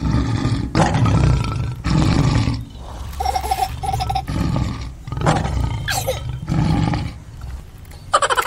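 Lion roaring and growling, a recorded sound effect: a series of loud roars, one after another.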